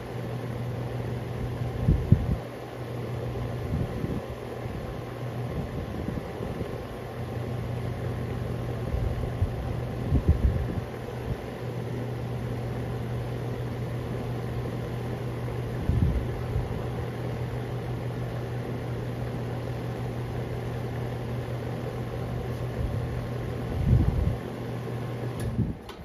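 Lennox central air conditioner's outdoor condensing unit running, its compressor and condenser fan giving a steady low hum with a whooshing blade noise, then shutting off abruptly near the end as the cooling cycle ends. A few low rumbles of wind on the microphone come and go.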